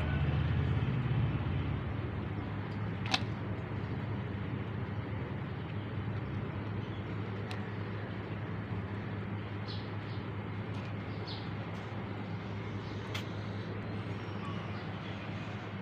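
Steady low hum and rumble of background noise, broken by a few sharp clicks.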